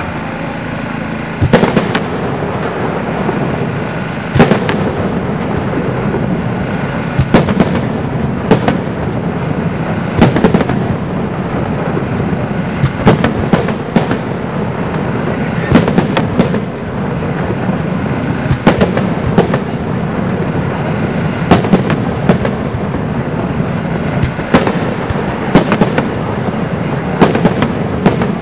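Aerial fireworks display: shells bursting with sharp bangs every second or two, sometimes two or three in quick succession, over a continuous rumble and crackle.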